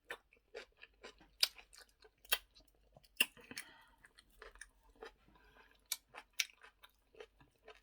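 Close-up chewing and wet mouth smacks of a person eating eba with okra soup, an irregular run of sharp clicks.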